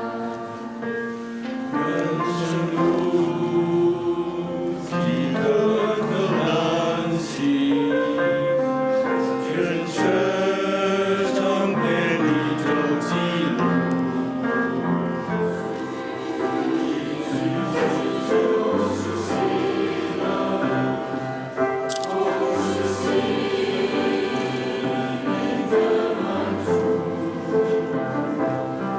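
A choir singing a hymn in several-part harmony, with sustained chords that move step by step; deeper bass notes come in about halfway through.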